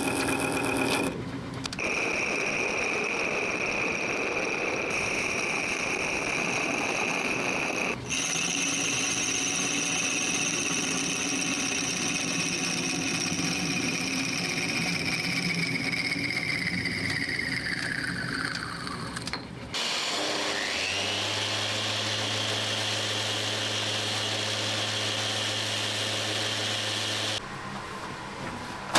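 Electric workshop power tool running at speed across several spliced shots. A little past halfway through, its motor whine falls steadily as it winds down after being switched off. A motor then starts and quickly rises to a steady whine over a low hum.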